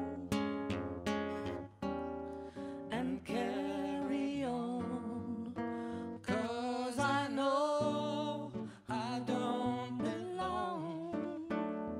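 Live acoustic band music: an acoustic guitar strummed in a steady rhythm, with upright bass notes underneath and a sustained melody line with vibrato over the top.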